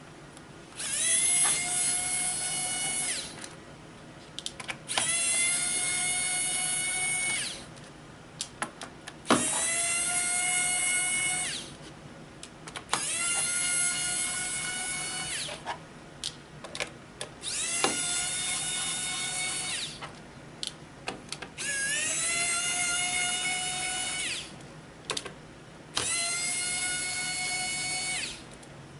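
Electric screwdriver running in seven bursts of about two to three seconds each, its motor whine rising as it spins up and then holding steady, as it backs out the screws from a Chromebook's base. Small clicks sound between the bursts.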